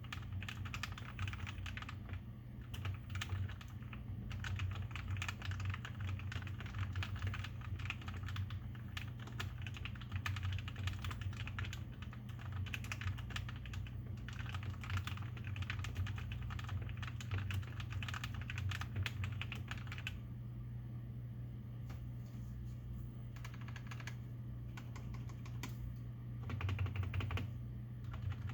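Typing on a Tecware Phantom 87-key mechanical keyboard with lubed stock Outemu Red linear switches and lubed, clipped, band-aid-modded stabilizers: rapid continuous keystrokes that thin out to scattered presses about two-thirds of the way through, then a short quick burst near the end, over a steady low hum.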